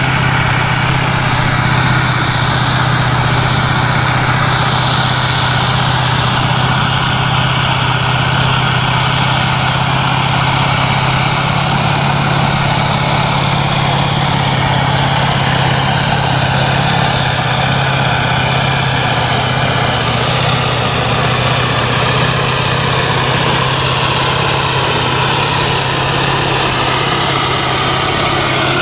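Kirovets K-700 tractor's turbo-diesel engine running flat out under full load as it drags a tractor-pulling brake sled, a loud, steady drone that does not let up.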